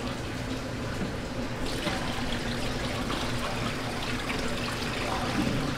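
Water trickling and lapping in a stainless-steel basin of rice being rinsed, a steady low wash of water.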